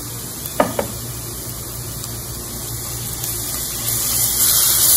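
Chopped onions frying in hot oil in a pan, a steady sizzle that grows louder near the end as ginger-garlic paste is stirred in with a spatula. A single short knock about half a second in.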